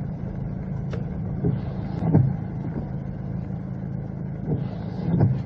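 Toyota Fortuner 2.8's four-cylinder turbodiesel running at low revs, heard from inside the cabin, with a few light knocks and thumps as the car rolls over a rough, wet track.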